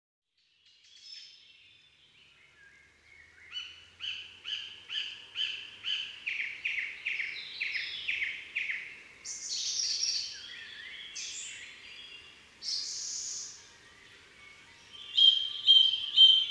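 Birds singing and calling: a run of repeated clear chirps, about two a second, for several seconds, then a few harsh, noisy calls, and quick chirping again near the end.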